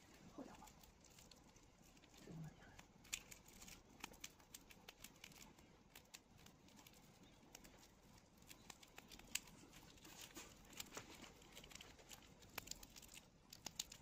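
Faint, irregular crisp clicks and crackles of a sugar glider chewing on a cicada.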